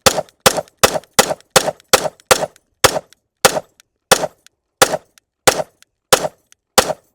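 A Sig Sauer M18X 9mm pistol fires a continuous string of about fifteen shots. The shots come quickly at first, nearly three a second, then slow to roughly one every two-thirds of a second. This is the pistol emptying its 21-round magazine.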